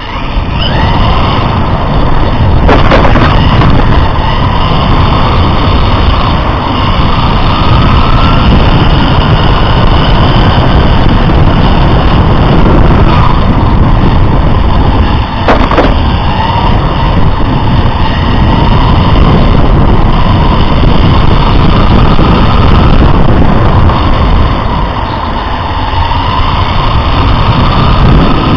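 Radio-controlled racing car heard from its own on-board camera: a loud, continuous rumble of road and wind noise with the motor's whine rising and falling as the throttle comes on and off through the corners. Two sharp knocks, about three seconds in and again about fifteen seconds in.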